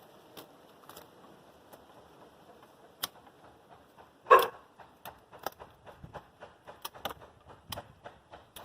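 Hand pruning shears snipping grape vine canes: scattered sharp snips, one louder, longer cut about four seconds in, then a quicker run of clicks at about three a second.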